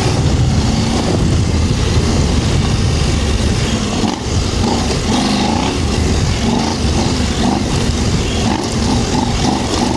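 KTM 790 Adventure R's parallel-twin engine under load, revs rising and falling as the bike is ridden through soft, whooped-out sand.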